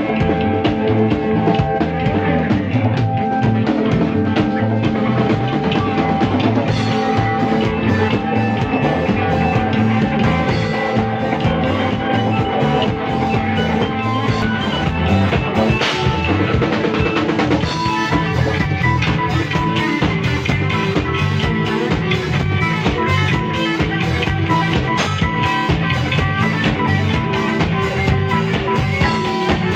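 Band playing rock music live, drum kit prominent under sustained instrument notes. About two-thirds of the way through, a fast regular cymbal beat comes in.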